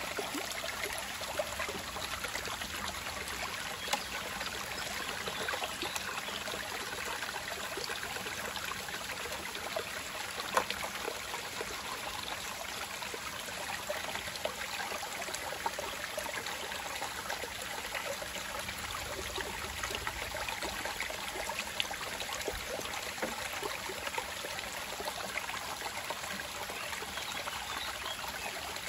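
Shallow river water running steadily over and between rocks, with a few sharp clicks.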